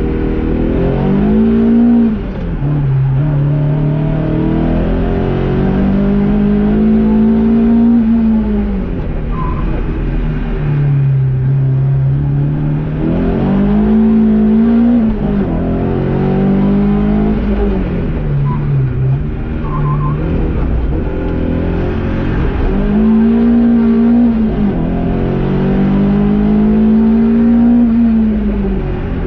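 Heard from inside the cabin: a BMW E30 318is's M42B18 1.8-litre four-cylinder engine with individual throttle bodies, being driven hard on a track. Its note climbs and holds high under acceleration, then drops back and climbs again, several times over.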